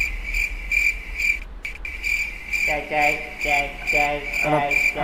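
A cricket chirping steadily, about two chirps a second, with a brief gap in the sound about a second and a half in. From about halfway through, a man laughs in short bursts.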